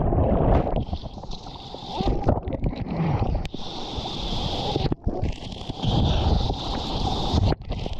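Turbulent whitewater rushing and churning against a surf camera as it is dunked underwater and comes back up in the foam. The sound is a muffled, mostly low rush, with two sudden brief dropouts, one about five seconds in and one near the end.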